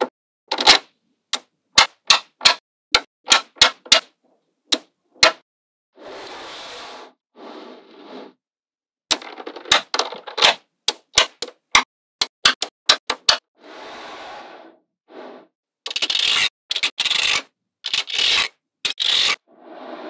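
Small magnetic balls clicking sharply as they snap together, one at a time and in quick runs. Between the clicks come several longer rattling, scraping stretches, the loudest near the end.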